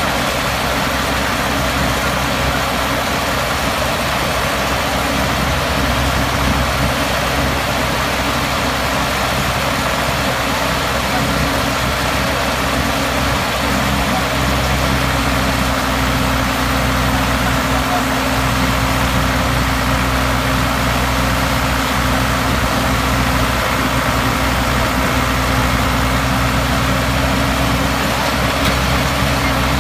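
Photovoltaic pile drilling machine's engine running steadily.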